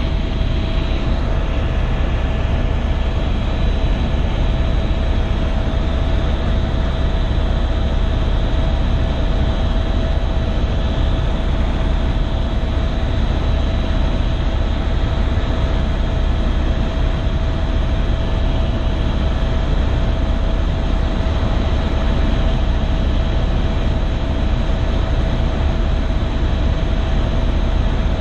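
Helicopter cabin noise in steady flight: a loud, deep rumble of the rotor and engine with a constant whine over it.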